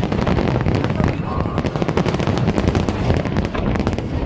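A dense, continuous barrage of aerial fireworks, with many overlapping bangs and crackles every second over a heavy low rumble.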